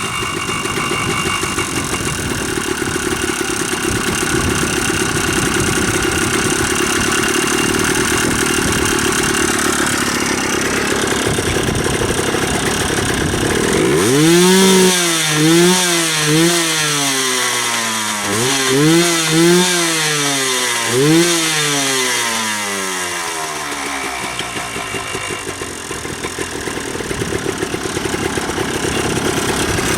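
Yamaha Blaster's 195cc single-cylinder two-stroke engine, freshly rebuilt, running steadily. About halfway through, the throttle is blipped about six times, the pitch rising and falling with each one, before it settles back to a steady run.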